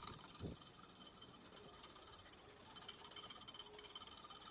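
Metal balloon whisk beating a dalgona coffee mixture in a ceramic bowl by hand: faint, fast rhythmic clicking and scraping of the wires against the bowl, with a soft low bump about half a second in.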